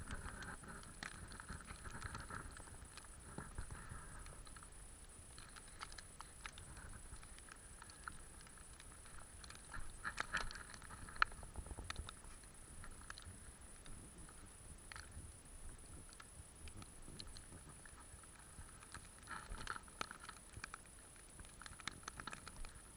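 Footsteps crunching through fresh snow, with scattered small clicks and rustles from a handheld camera. The sound is faint and irregular, with denser stretches at the start, about ten seconds in and near the end.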